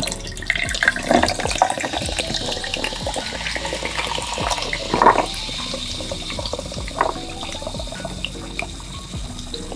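Coca-Cola poured from a can into a glass of ice cubes, a steady splashing, fizzing pour. A few sharper clinks come through, the loudest about five seconds in.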